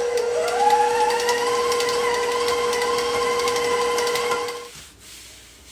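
KitchenAid stand mixer motor whining as it is turned up to medium speed to bring shortbread dough together. Its pitch climbs over the first second and then holds steady, with light clicking from the beater in the dough, and the motor cuts off sharply near the end.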